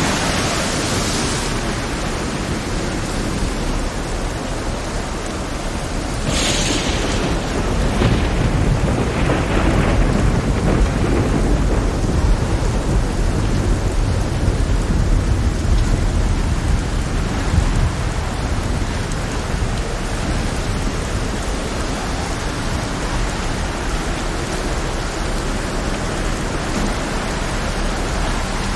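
Heavy rain pouring steadily under deep, continuous rumbling thunder. Brief louder hissing surges stand out at the start, about six seconds in and about nine seconds in.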